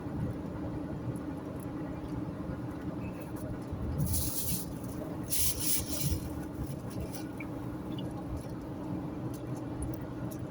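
Steady road and engine rumble of a car driving on a highway, with a low hum throughout. Two short hissing bursts come about four and five and a half seconds in.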